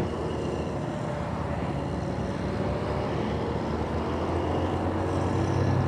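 150cc scooter engine running while riding, with road and wind noise; the engine note grows louder toward the end.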